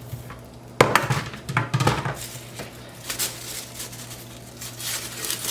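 Kitchenware being handled: a sharp knock about a second in, then irregular clinks, knocks and rustling of dishes and containers.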